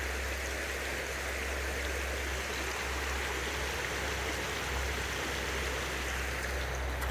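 River water flowing with a steady rushing, over a steady low rumble.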